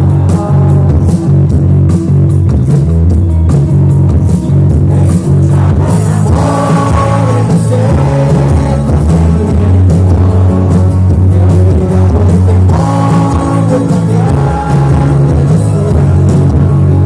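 Live rock band playing through a festival PA, recorded from the crowd, very bass-heavy. A higher melody line rises over the band about six seconds in and again near the end.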